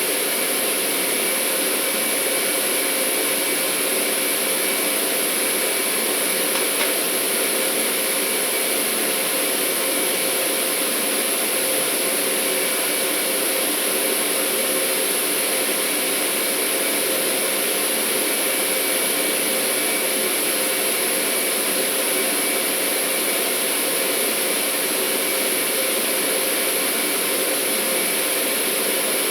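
Steady industrial machinery noise, motors and pumps running, with a constant high-pitched whine over it and no change in level.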